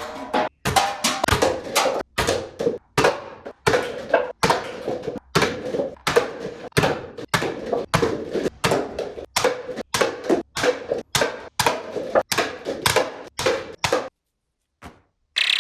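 A quick series of short, sharp knocks, about two to three a second, each cut off abruptly, stopping about fourteen seconds in.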